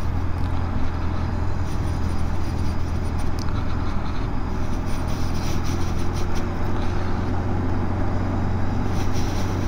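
Motorcycle being ridden at a steady pace: the engine's low, steady hum under wind and road noise.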